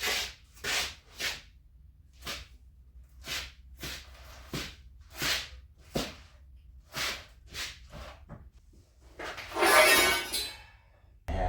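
Steel tubing being bent around a concrete bending form: a series of short scraping or creaking strokes roughly once a second, then a longer, louder squeal about ten seconds in.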